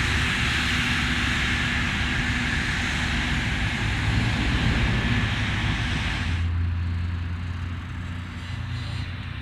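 Forage harvester running hard while chopping maize: a loud, steady, rushing machine noise with a thin high whine. A little over six seconds in, the sound cuts abruptly to a quieter, low engine drone.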